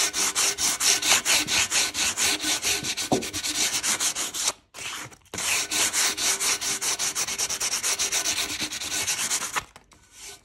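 240-grit sandpaper rubbed by hand over dry textured chalk paint in quick back-and-forth strokes, about five a second, with a short break about halfway through. This is a light sanding that knocks the peaks off the texture, the paint coming off like chalk dust.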